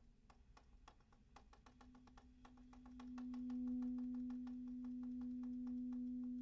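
Saxophone key clicks tapped out in a quick, uneven run, joined about two seconds in by a single long saxophone note that swells in and is held.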